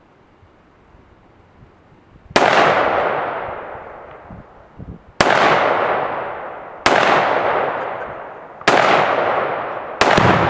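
Five rifle shots fired one at a time, spaced about one and a half to three seconds apart, each with a long echo that fades over a second or more. The shots are aimed at a Tannerite-loaded target.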